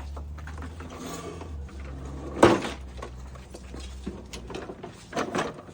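Knocks and clunks from handling equipment: one loud clunk about two and a half seconds in and a few smaller knocks near the end, over a low steady hum that stops about four seconds in.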